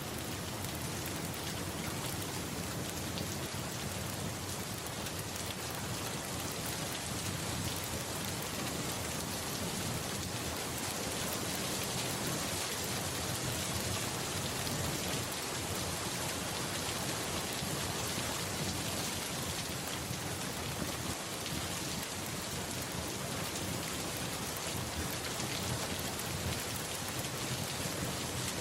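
Steady rain falling on surfaces: an even hiss of drops that holds level throughout, with no single loud strike.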